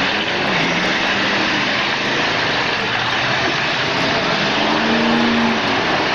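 Several demolition derby cars' engines revving, their pitch falling and rising, over a dense, steady noise of engines and spinning tyres.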